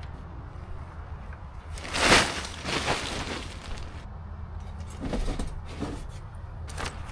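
A steady low rumble with several brief, noisy swishes or knocks, the loudest about two seconds in and the others spread through the rest.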